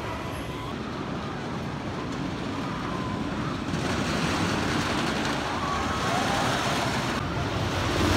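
Steady rumbling roar of outdoor theme-park background noise, growing louder about four seconds in.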